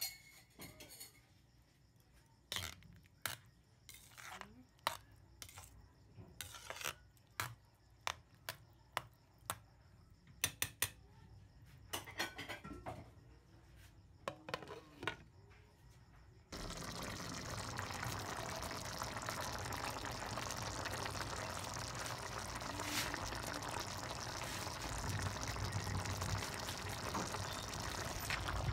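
Scattered clinks and scrapes of a utensil against a cooking pot, with quiet gaps between them. About halfway through, a steady hiss of afritada stew bubbling at a simmer comes in suddenly.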